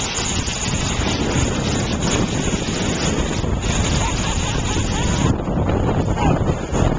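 Wind rushing over the microphone and the rumbling hiss of a snow tube sliding fast down a snow hill. The highest part of the hiss thins out about five seconds in.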